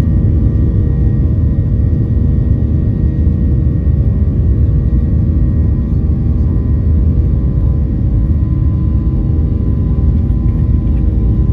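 Steady cabin drone of a Boeing 737-800's CFM56-7B jet engines and rushing air, heard from inside the cabin: a deep, loud rumble with several steady engine tones above it.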